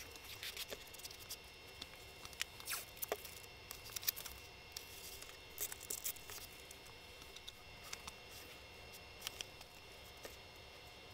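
Faint, scattered small clicks, scratches and rustles of hands laying masking tape and a steel ruler on a foam insert and marking it, over a faint steady hum.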